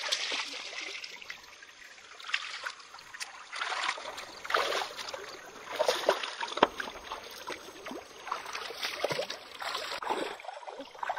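Shallow stream running over rocks, with repeated splashes and sloshing from hands moving through the water while searching for fish.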